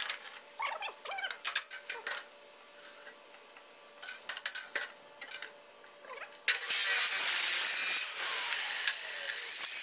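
Clicks and clinks of steel as a square steel tube is set and clamped in the vise of an abrasive cut-off saw, then about two-thirds of the way in the saw's abrasive wheel starts cutting through the tube with a sudden, steady high hiss.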